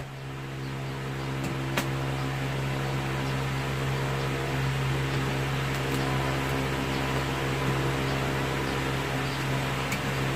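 Steady electric motor hum, like a running fan, with a few faint snips and clicks of scissors cutting through a bale's plastic wrapping and straps; one sharp click about two seconds in.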